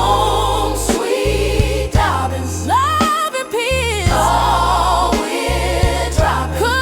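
A Christmas song: voices singing over a bass line that steps from note to note about once a second.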